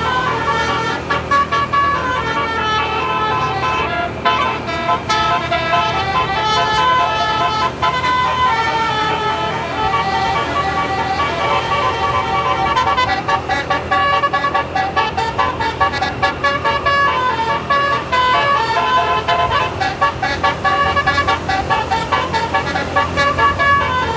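A tourist bus's basuri telolet horn playing a tune: a long run of held, horn-like notes stepping from pitch to pitch, with the bus's low running hum beneath.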